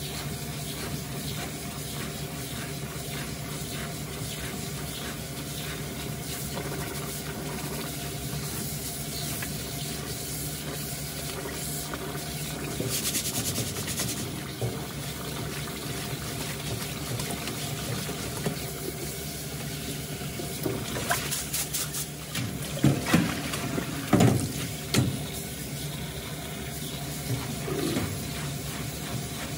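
Tap water running into a stainless-steel pot of rice while a hand stirs and rubs the grains: rice being washed. A few louder sudden splashes and bumps come about three-quarters of the way through.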